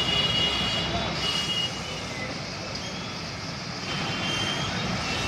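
Steady heavy engine rumble from a parked fire engine and passing road traffic, with short high-pitched tones sounding on and off.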